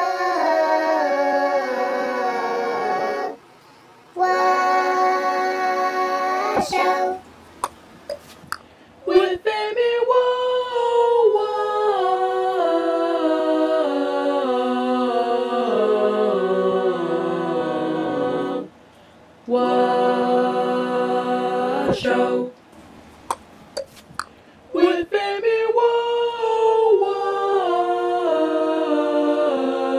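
A sung voice, digitally pitch-shifted so that it steps down in pitch every half second or so, in several long runs separated by short pauses with a few clicks.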